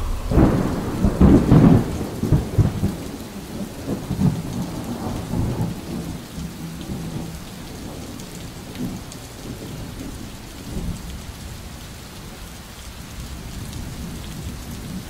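Thunder rolling over steady rain: a heavy rumble, loudest in the first two seconds, that fades away while the rain continues.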